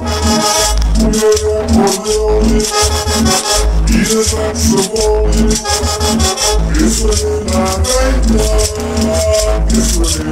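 Cumbia music playing, with a steady bass beat about once a second, rhythmic percussion and held melody notes.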